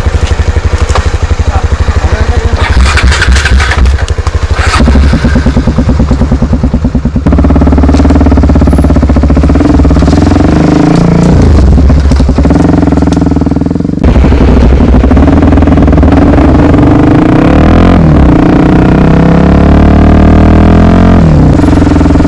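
Honda XR 250 Tornado's single-cylinder four-stroke engine. It pulses at low revs at first, then pulls harder from about seven seconds in, its pitch rising and falling as the throttle is worked.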